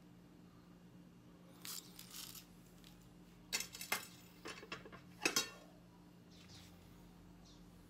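Small metal hand tools being handled: a couple of light clicks, then a cluster of sharper metallic clinks and rattles, the loudest a little past the middle.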